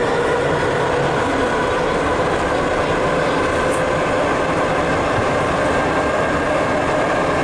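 Historic Ečs metro car running on the line, heard from inside: a steady rumble of wheels on rails with a steady whine over it.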